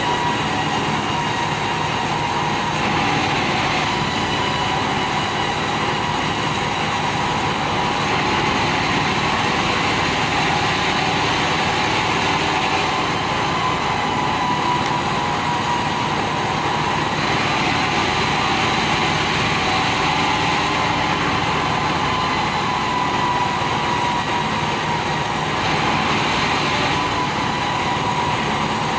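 Sawmill band saw running steadily: a constant whine over a mechanical drone and hiss. The sound turns brighter and hissier for a few seconds at a time, several times.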